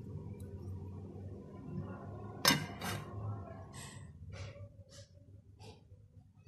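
Steel spatula scraping and stirring potatoes and fenugreek leaves in a stainless steel karahi, then the steel lid set down on the pan with a sharp metal clink about two and a half seconds in and another just after, followed by a few lighter taps as the lid is settled. The pan is being covered to cook slowly on dum. A low steady hum sits underneath.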